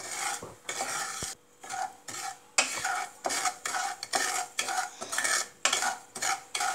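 Wooden spatula stirring dry semolina in a non-stick kadhai, a gritty scraping in quick repeated strokes with a short pause about a second in. The semolina is being dry-roasted with no oil, so there is no sizzle.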